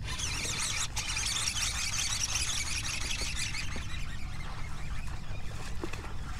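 A hissing rush that starts suddenly and fades away over about four seconds as a largemouth bass, hooked on a frog lure, is fought and reeled toward the boat.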